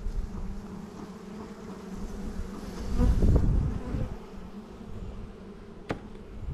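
Honeybees buzzing in a steady hum around an open hive. About three seconds in there is a louder low rumble lasting under a second, and a single sharp click comes near the end.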